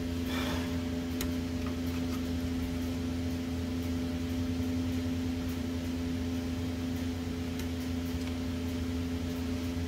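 Shop heater running with a steady, even hum. A few faint clicks come from hands working at the carburetor.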